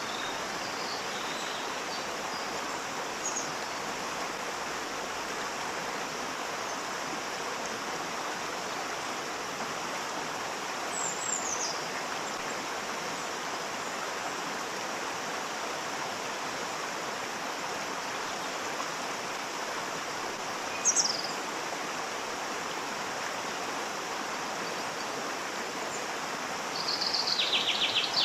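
Waterfall's steady rush of falling water. Brief high bird calls cut in above it a few times, with a longer trill near the end.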